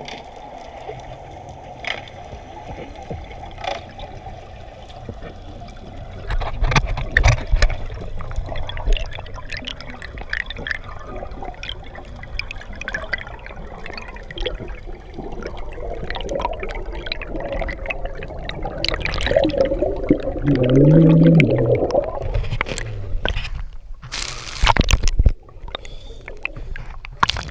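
Underwater audio through a submerged camera: muffled bubbling and rushing water. Near the end it turns to splashing as the camera breaks the surface.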